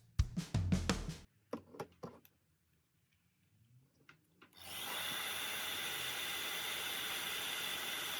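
A few drum beats of background music end about two seconds in. After a short quiet gap, a heat gun starts blowing, with a steady rush of air and a steady high whine, heating the phone's glued back cover to soften the adhesive.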